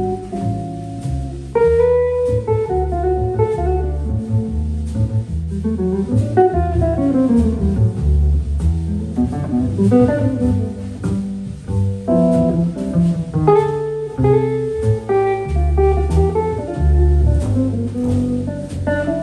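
Jazz trio playing a blues: a semi-hollow electric guitar carries the melodic lines, over an upright bass walking in steady notes and drums keeping time.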